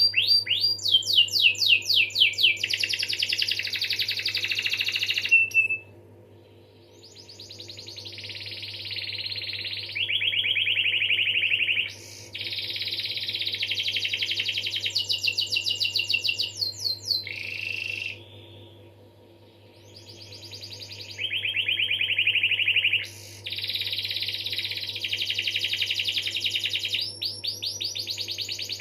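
Domestic canary singing a long rolling song. It runs in fast trills of rapidly repeated notes lasting several seconds each, some sweeping down and some held on one pitch, with two short breaks. A faint steady low hum lies underneath.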